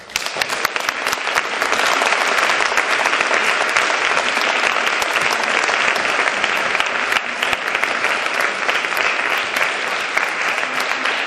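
A large audience applauding at the end of a lecture: steady, dense clapping that begins suddenly and keeps going.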